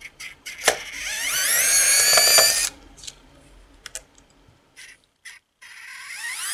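Cordless electric precision screwdriver backing out a small case screw: a motor whine that rises in pitch for about a second and a half, then stops. A few sharp clicks are scattered around it, and the motor starts up again right at the end.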